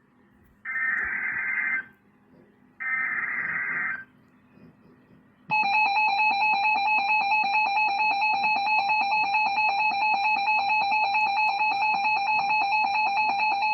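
Emergency Alert System SAME header: three harsh, warbling digital data bursts, each about a second long with a second's gap between them. About five and a half seconds in, the steady EAS two-tone attention signal starts, announcing the next severe thunderstorm warning.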